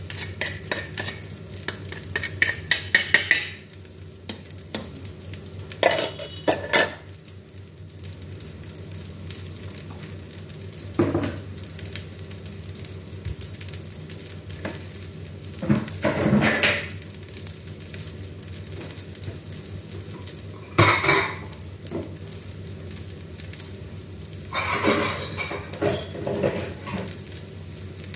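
Cooking utensils clattering against a large aluminium wok: a quick run of tapping and scraping as a metal ladle is cleaned off with a plastic spatula, then scattered clanks of pans and utensils every few seconds over a steady low hum.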